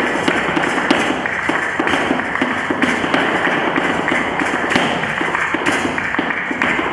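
Flamenco shoes striking the studio floor in soleá footwork, many sharp taps a second, over flamenco music.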